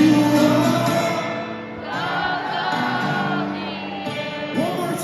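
Arena crowd singing together, a mass of voices holding the refrain over the band's backing.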